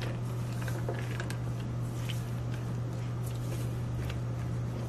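A steady low hum throughout, with faint scattered clicks and scrapes of a wooden spoon stirring candy melts in a metal bowl.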